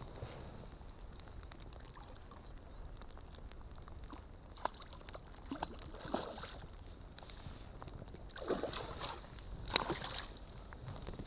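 Water sloshing lightly around a float tube, then a hooked fish splashing at the surface beside the tube in several bursts from about eight to ten seconds in.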